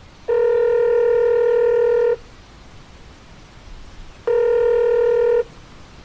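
Two long electronic beeps at the same steady pitch, each starting and stopping abruptly: the first lasts nearly two seconds, the second about a second, with a pause of about two seconds between them.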